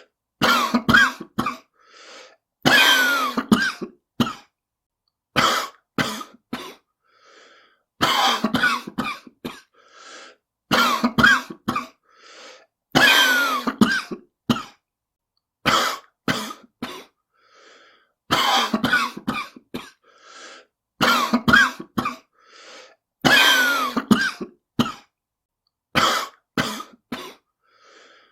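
A person coughing hard and repeatedly, in bouts of several harsh, chesty coughs about every two to three seconds, with faint breaths in the pauses between, presented as a smoker's cough.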